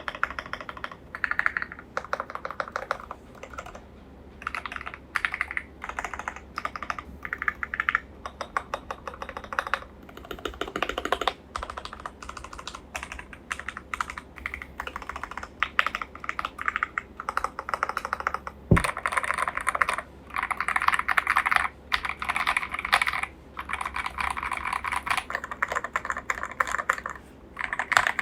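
Fast typing on a KBD67 Lite mechanical keyboard with linear switches, a dense run of key clacks with short pauses between bursts. About 19 seconds in comes one deep thump, and after it the keystrokes sound brighter and louder.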